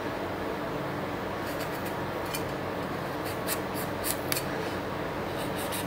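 Kitchen knife cutting a large tomato: a scatter of light clicks and scrapes of the blade starting about a second and a half in, over a steady low hum.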